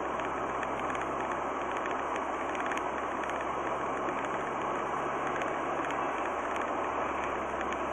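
Steady road and engine noise inside a car cruising at about 60 km/h, as picked up by a dash cam's microphone.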